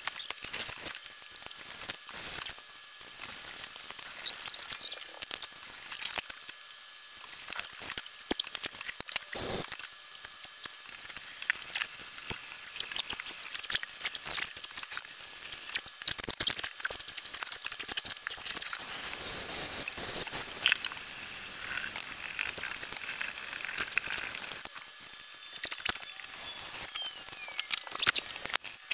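Close-up kitchen handling sounds of frosting cupcakes: a spatula scraping a plastic tub of frosting and spreading the icing, with many small clicks, taps and rustles.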